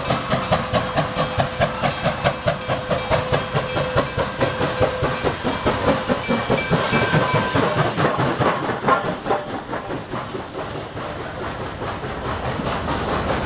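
Nickel Plate Road No. 765, a 2-8-4 Berkshire steam locomotive, working hard with rapid, even exhaust chuffs as it approaches and runs past close by. About nine seconds in, the chuffing gives way to the steadier rolling sound of the passenger cars going by.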